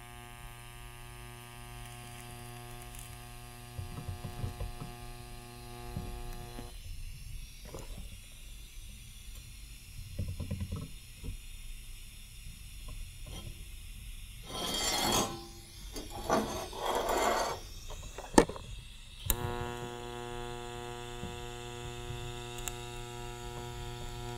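TIG welding arc buzzing steadily as the end of a steel tab is wrapped with weld to hold it in place on a tube. The arc cuts off after about seven seconds. Rustling and clinking of handling follow, with a sharp click. The arc buzzes again for the last five seconds.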